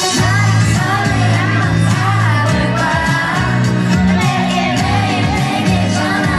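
Pop music with a woman singing a held, wavering melody over bass and drums.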